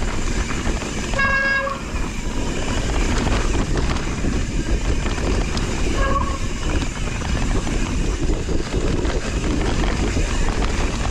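Mountain bike rolling fast down a dirt trail: steady rush of tyre and wind noise with small rattles and knocks from the bike over the ground. A disc brake squeals with a short, steady pitched tone about a second in and again, more faintly, near six seconds.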